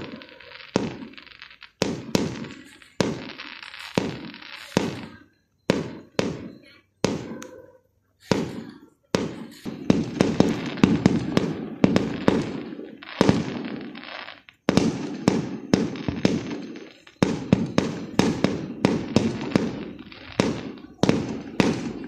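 Fireworks going off: a string of sharp bangs, each dying away, irregularly spaced at first and then coming thick and fast in dense barrages.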